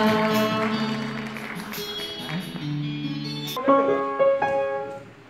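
Music: the last guitar chords of a sung ballad ring out and fade, with a few plucked notes. About three and a half seconds in, a different piece starts with piano notes.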